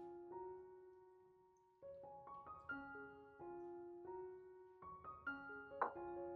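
Soft background piano music: gentle phrases of single notes that start about every three seconds, with a brief sharp click a little before the end.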